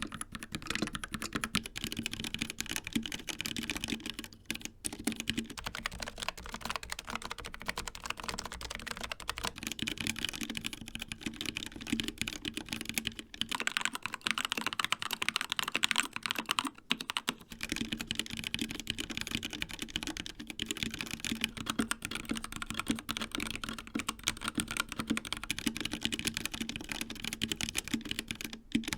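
Typing on a series of mechanical keyboards, one after another, with the click changing at each switch-over. The sequence runs from a Dark Project KD68B with G3ms Sapphire switches to a Logitech MX Mechanical with Kailh Brown switches, then a Keychron K2 with Gateron Red switches, and near the end an Endorfy Thock Compact Wireless with Kailh Box Black switches.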